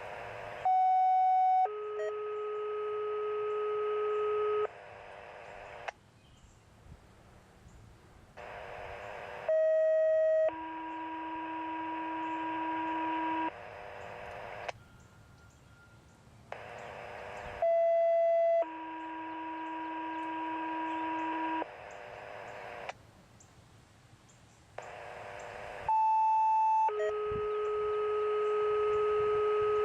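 Two-tone sequential radio paging tones, the activation signal for an outdoor warning siren test. Each pair is a short tone of about a second followed by a longer tone of about three seconds at a different pitch, heard four times with radio hiss in the gaps.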